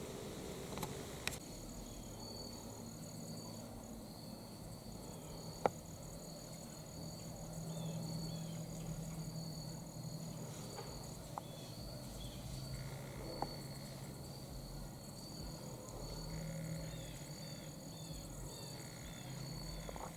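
Insects trilling steadily in two high, continuous tones, with a faint low hum underneath and a few short, sharp clicks.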